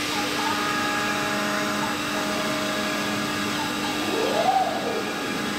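A 5-axis mini CNC milling machine running, a steady motor whine with several held tones. About four seconds in, one tone glides up and back down, as when an axis speeds up and slows.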